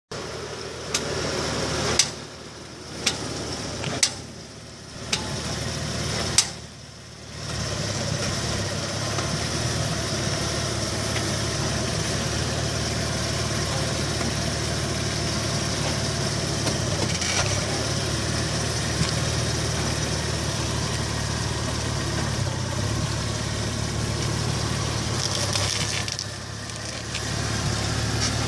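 2004 Volkswagen Passat's left front clicking: six sharp clicks about a second apart while stopping, then the car running with a steady drone and a few faint clicks.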